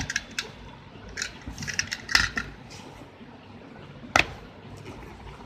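Cardboard shipping box being handled and opened by hand: scattered scrapes, taps and rustles, with one sharp knock about four seconds in.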